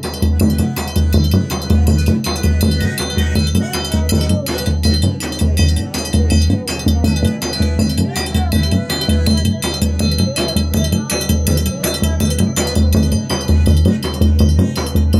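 Forró pé de serra music played live: accordion melody over a steady, driving zabumba bass-drum beat, with a triangle struck in a fast, continuous rhythm.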